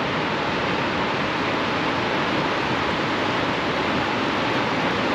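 Steady roar of Upper Mesa Falls, the big waterfall on Idaho's Henry's Fork, as its water rushes over the top of the falls.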